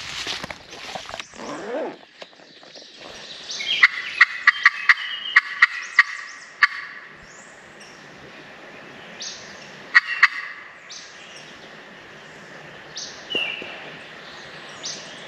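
Turkey calling on a friction call worked with a wooden striker: a run of sharp yelps at about three or four a second, two more notes near ten seconds, and a wild turkey gobbling in answer.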